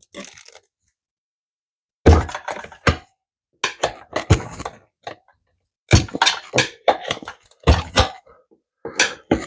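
Metal tire irons clinking and knocking against a dirt bike wheel rim as the tire bead is levered off. It starts about two seconds in as a string of short, irregular clanks and thunks.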